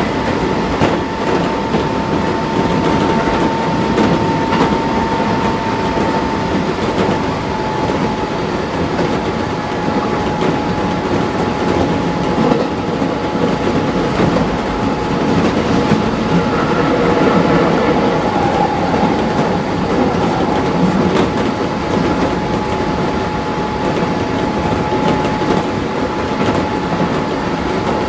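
Interior running sound of a Keisei 3400 series electric train car at speed: a steady rumble, wheels clacking over rail joints and a steady high tone running throughout.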